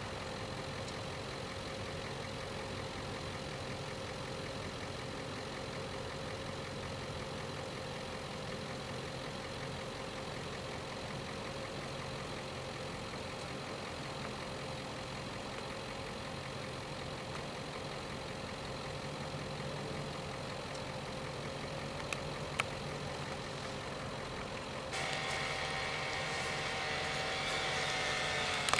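An engine idling steadily. A couple of small clicks come near the end, and a higher steady whine joins in shortly before the end.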